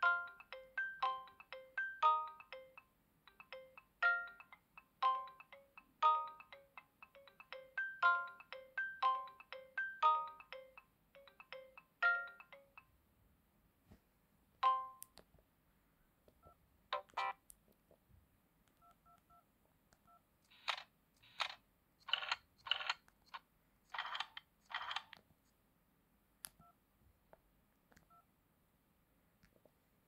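Philips Xenium 9@9k phone playing a MIDI ringtone through its small speaker: a melody of short notes, about two a second, that stops about 13 seconds in. After that come a few separate short beeps and tones from the phone's keypad being pressed.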